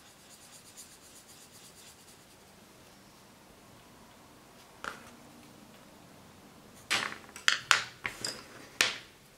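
Coloured pencil scratching faintly on paper in quick back-and-forth strokes as a swatch is finished. Near the end come a few sharp, loud clicks and clacks of wooden pencils being handled.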